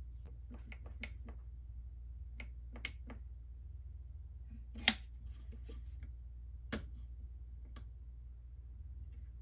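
Light metallic clicks of a PSA safety lever on a Century Arms Draco NAk9X being worked up and down through its detents, with two louder snaps about five and seven seconds in, over a low steady hum.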